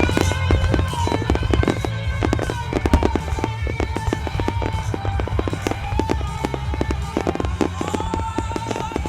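A dense barrage of firework shells bursting, many sharp bangs and crackles a second over a continuous low rumble, with music playing alongside it.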